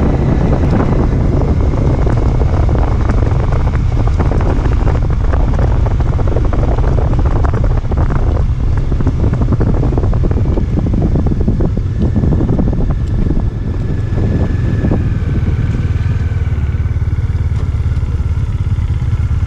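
Motorcycle riding over a rough gravel road, its engine running under wind noise on the microphone, with rattling and clattering from the bike over the bumps through the first dozen seconds. After that the ride smooths out and a faint steady whine comes in.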